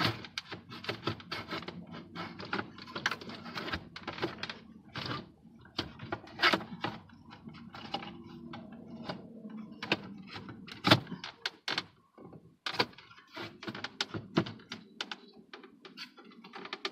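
Irregular clicks, knocks and rattles of hands working a car's plastic gauge cluster and dash trim out past the wiring harness, with one sharper knock about two-thirds of the way through.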